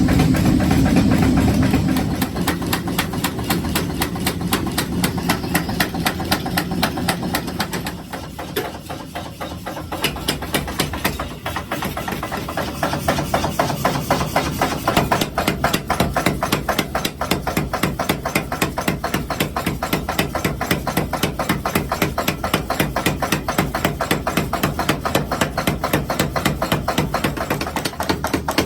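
Mechanical power hammer pounding hot steel in a fast, even rhythm of about five blows a second, with a steady machine rumble underneath. The blows are lighter for a few seconds about eight seconds in.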